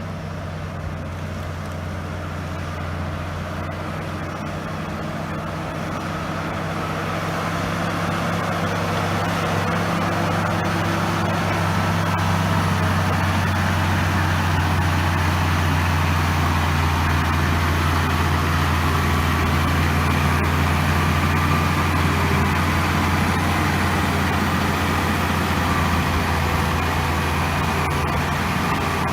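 Diesel engine of a LiuGong B160C crawler bulldozer running steadily, growing louder over a few seconds and then holding at a constant level.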